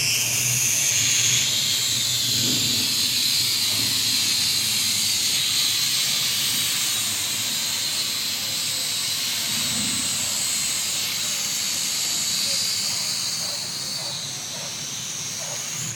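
Small toy quadcopter's four electric motors and propellers whirring with a steady high-pitched whine as it lifts off and flies, stopping suddenly at the end.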